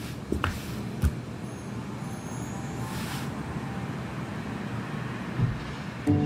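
Steady low background noise, with a few soft knocks in the first second and a single thump about five seconds in. Music comes in at the very end.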